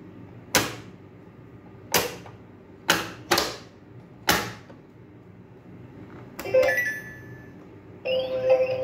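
Plastic lids of a children's pop-up animal toy being snapped shut by hand: five sharp plastic clicks in quick succession, then a smaller clatter. A tune starts near the end.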